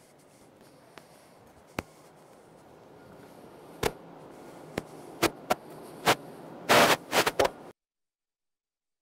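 Camera handling noise: a run of sharp knocks and clicks on the microphone, several close together near the end, as the camera is moved, over the steady background hum of an exhibition hall. The sound then cuts off suddenly to dead silence.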